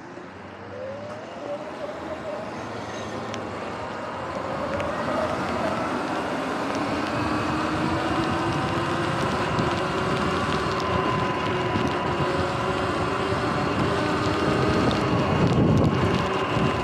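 Sur-Ron electric dirt bike pulling away from a stop. Its motor whine rises in pitch over the first few seconds, then holds steady at cruising speed over tyre and wind noise that grows louder with speed.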